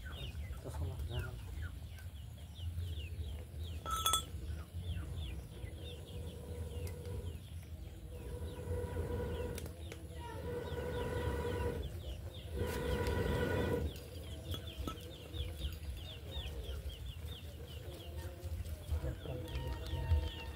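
Chickens nearby: chicks peeping in quick, high, falling chirps throughout, a sharp knock about four seconds in, and two long steady-pitched calls of a couple of seconds each, about ten and thirteen seconds in.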